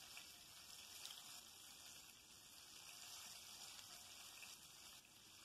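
Faint, steady sizzling of pomfret shallow-frying in oil on a low flame, the fish nearly done.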